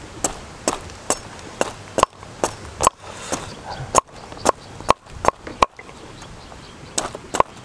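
Large knife chopping jackfruit on a round wooden chopping board: sharp knocks of the blade striking the wood, about two a second. After a pause of about a second near the end come a few quicker chops.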